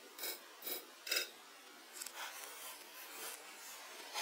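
A hatchet striking and shaving a wooden log in short scraping strokes, three clear ones in the first second and a half, then fainter ones.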